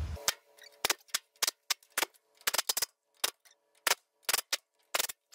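A series of short, sharp clicks or taps at an irregular pace, about two or three a second, some in quick pairs and clusters.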